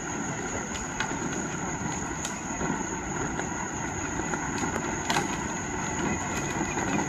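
Battery-powered ride-on toy Jeep driving on asphalt: its electric motors whirring and its hard plastic wheels rumbling steadily on the road.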